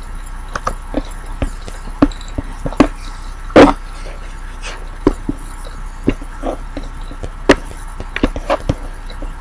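Computer keyboard keystrokes and mouse clicks, irregular and a second or so apart, with one louder knock about three and a half seconds in.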